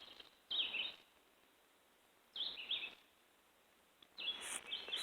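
A songbird calling in short, quick phrases, repeated about every two seconds. Near the end a rustling hiss comes up under the last call.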